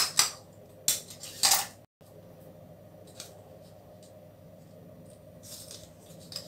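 Large steel scissors snipping through folded paper, three sharp cuts in the first two seconds, the last one drawn out a little longer.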